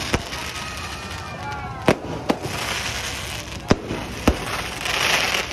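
Aerial fireworks shells bursting overhead: about five sharp bangs at uneven intervals.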